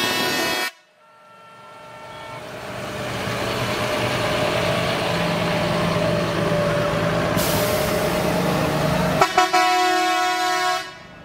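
A truck horn sounding and cutting off sharply just under a second in. Then a truck's engine running, growing louder over a few seconds and holding steady. Near the end come a few quick toots and a horn blast of about a second and a half.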